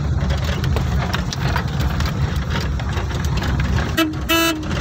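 Vehicle engine running with a steady low rumble while driving, heard from inside the cab. Near the end the horn sounds twice, a very short beep and then a slightly longer one.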